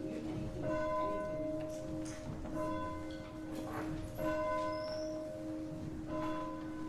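Church bell ringing before a service, struck about every two seconds, each stroke ringing on over a steady held tone.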